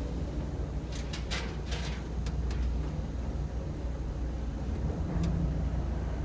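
Hitachi passenger elevator car travelling between floors: a steady low rumble of the moving car. Several sharp clicks come between about one and two and a half seconds in, and one more near the end.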